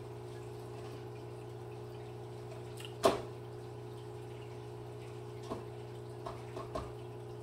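Quiet room with a steady low hum, broken by one sharp click about three seconds in and a few faint ticks near the end.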